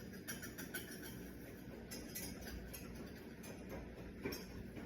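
Velouté sauce being stirred in a pan: scattered light clinks of a utensil against the pan over a faint steady background.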